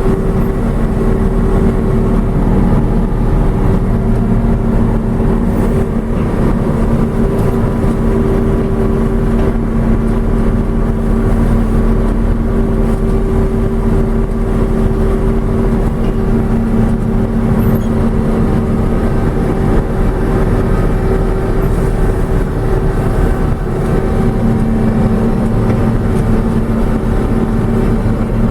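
John Deere 6620 combine running steadily while harvesting corn: its diesel engine and threshing machinery make a constant, loud hum with no change in speed, heard from the operator's cab.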